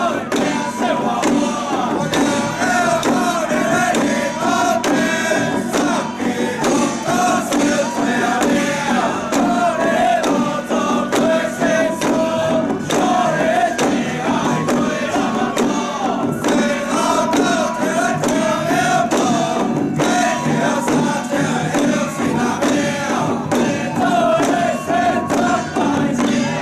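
A group of men chanting in unison, with handheld drums on sticks beaten along throughout.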